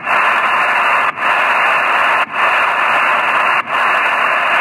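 Steady static hiss from an HF shortwave radio receiver tuned between voice transmissions, a narrow band of noise with brief dropouts a little more than once a second.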